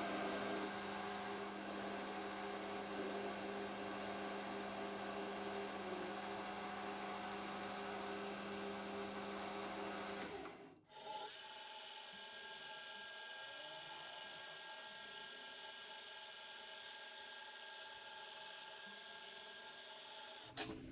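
Steady electric hum of a machine-tool motor running without cutting. About halfway through it breaks off abruptly and a quieter hum with higher tones carries on.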